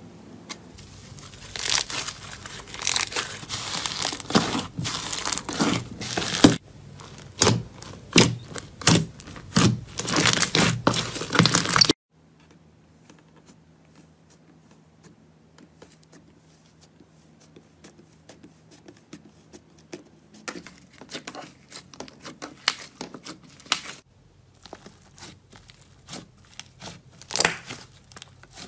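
Slime being stretched and pulled apart by hand, giving dense crackling and popping like tearing. About twelve seconds in it cuts to softer slime being pressed and squished, with fainter, sparser crackles that grow busier near the end.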